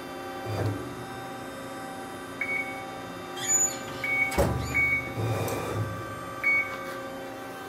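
Amada RG50 hydraulic CNC press brake running: a steady machine hum with several short high whines and a few low clunks as its back gauge shifts.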